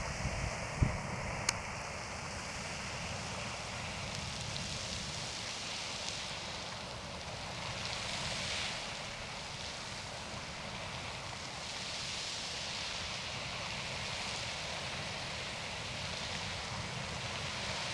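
Lone Star Geyser erupting: a steady rushing hiss of water and steam jetting from its cone, swelling and easing every few seconds. A low thump comes just under a second in, followed by a sharp click.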